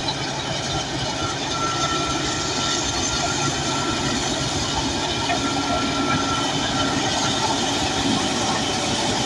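Crawler bulldozer working: its diesel engine runs under load while the steel tracks clank and rattle, with a thin high squeal for a few seconds in the middle.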